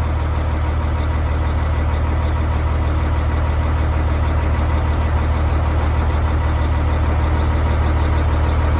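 Engine idling steadily: a loud, even, deep drone with no change in speed.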